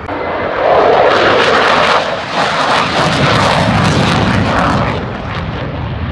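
Military jet flying low past an airshow crowd: a loud, steady engine roar that rises about a second in, then swells and eases.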